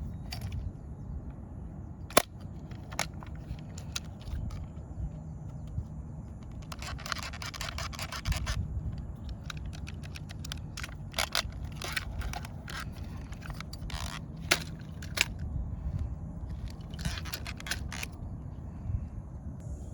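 Hands handling small hard objects: scattered sharp clicks and short spells of scraping and rattling over a steady low rumble.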